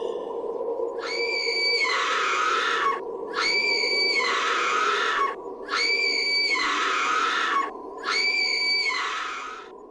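Horror sound effect: a shrill, high screech repeated four times, each lasting about two seconds, over a steady low drone.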